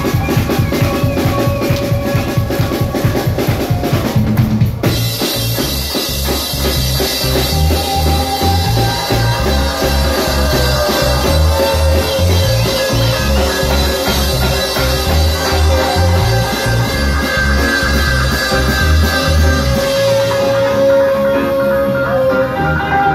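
Live reggae band playing: for about five seconds the drums play fast strokes alone, then the bass guitar and full band come in with a repeating bass line under a woman singing. Near the end the bass drops out.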